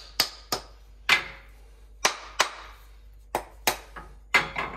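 Hammer blows driving a walnut wedge into the slot of a hammer handle, wedging the steel head tight on its wooden handle. There are about nine sharp strikes, often in quick pairs, each with a short ring.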